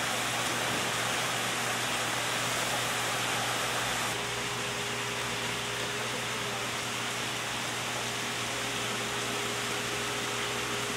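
Steady rushing background noise with a constant low hum. About four seconds in the noise shifts slightly and a faint steady tone joins it.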